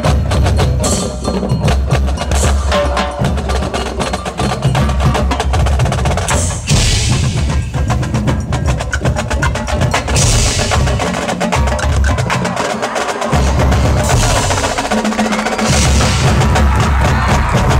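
Marching band playing a field show, its percussion to the fore: a dense, rapid stream of drum strokes with mallet percussion ringing over strong low notes.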